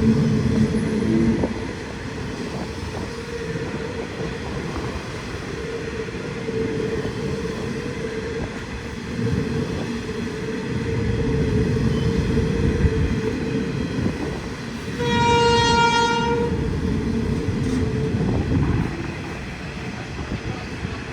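Freight train running by with a steady rumble of wheels and wagons. About three-quarters of the way through, the train horn sounds once for about a second and a half.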